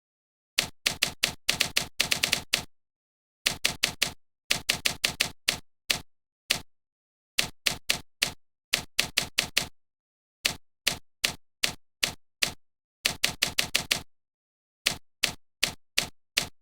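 Sharp mechanical clicks in quick irregular bursts of three to eight, with short pauses of dead silence between the bursts.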